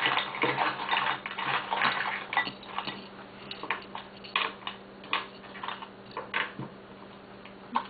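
Hard oyster shells clattering and clicking against each other as live pearl oysters are picked up and handled, thick and busy for the first few seconds, then thinning to scattered single clicks.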